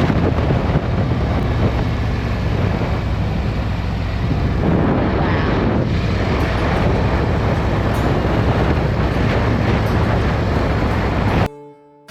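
Harley-Davidson V-twin motorcycle running at road speed, with wind rushing over the microphone. Near the end the sound cuts off abruptly and a few held music notes come in.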